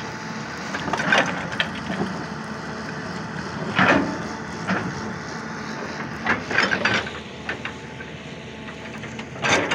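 Hitachi tracked excavator's engine running while its bucket works rocky ground, with irregular cracks and scrapes of breaking, shifting rock.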